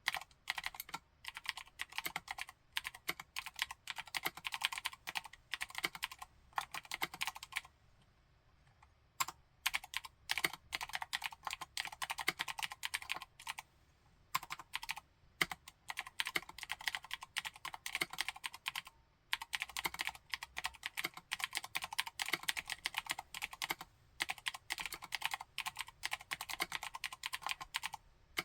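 Continuous typing on a Vortex M0110 mechanical keyboard with Cherry MX White clicky switches: fast runs of sharp keystroke clicks broken by short pauses, the longest about seven seconds in.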